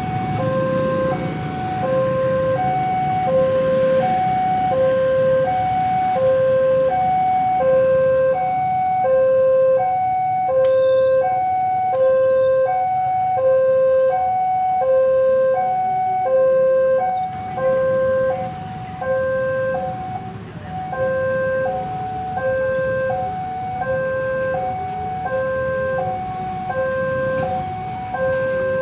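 Railway level-crossing warning alarm sounding: an electronic signal alternating between a low and a higher tone, about one pair a second, warning that a train is approaching and the barriers are down. Motorbike and traffic hum runs underneath.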